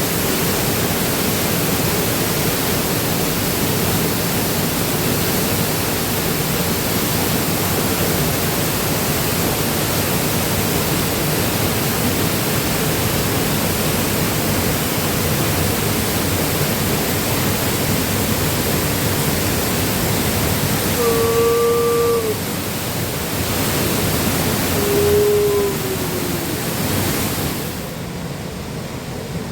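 Waterfall rushing steadily. Two brief low tones sound about four seconds apart partway through, the second falling at its end. The rush drops a little and turns duller near the end.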